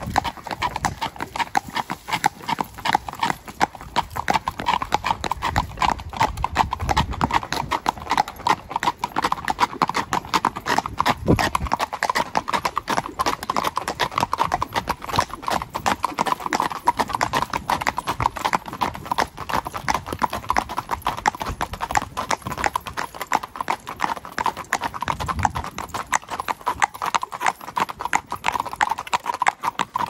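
Hooves of two walking horses, among them a Tennessee Walking Horse gelding, clip-clopping on a paved road: a steady, rapid patter of hoofbeats.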